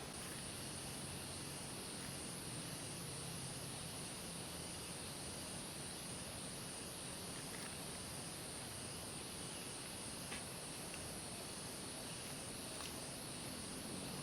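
Insects trilling in the forest: a steady high-pitched pulsing buzz, over faint outdoor background noise.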